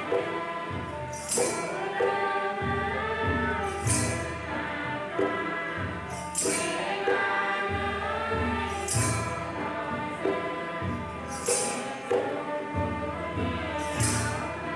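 Devotional group singing of a Bathou prayer hymn to harmonium accompaniment, with a cymbal clash about every two and a half seconds marking the beat.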